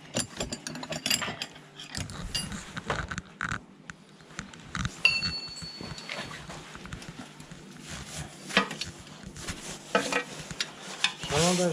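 Metal combination wrenches clinking against each other as a 17 mm wrench is pulled from a wrench rack, then scattered clicks and taps of the wrench on bolts of the tractor's housing, with a brief metallic ring about five seconds in.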